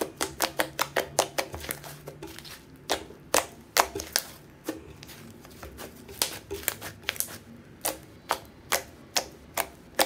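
Butter slime made with soft clay being pressed and poked with the fingers, giving many sharp clicks and pops. They come irregularly, sometimes in quick runs of several.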